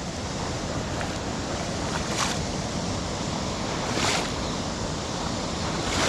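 River water running over a shallow ford, with a splash about every two seconds as boots are swished through it to wash them.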